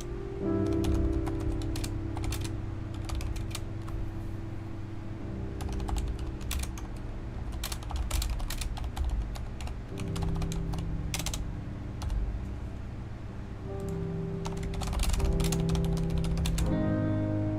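Typing on a Corsair mechanical keyboard: irregular runs of clicking keystrokes with short pauses between them, over background music of slow, held chords.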